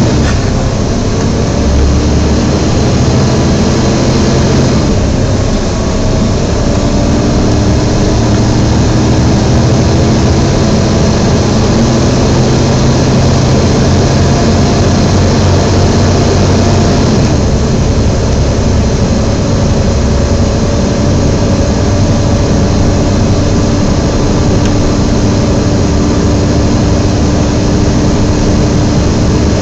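Volvo B7TL double-decker bus heard from inside while under way: the engine runs under a loud, steady whooshing whine from the cooling fan, the 'hoover' sound. The engine pitch climbs slowly and drops back about five seconds in and again about seventeen seconds in.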